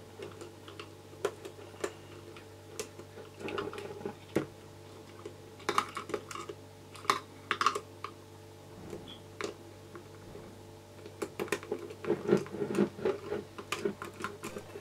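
Screwdriver backing out screws inside an airsoft gun's pistol grip: irregular light clicks and ticks of the tool on the screws and the gearbox shell as it is turned round and round, with some handling.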